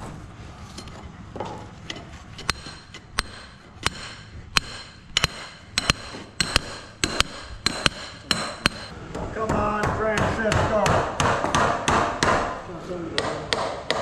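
Hammer driving steel stakes beside metal concrete forms: repeated sharp metallic strikes that ring briefly, coming faster and more crowded in the second half.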